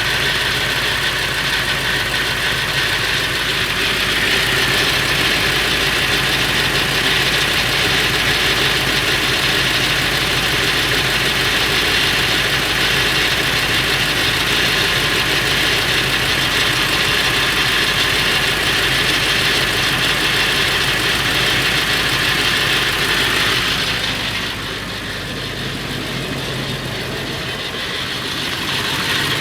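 Ford 7.3L Powerstroke V8 turbo-diesel idling with a rattle, which the owner suspects is a flexplate or internal engine problem. The sound gets quieter and duller for a few seconds near the end, then comes back up.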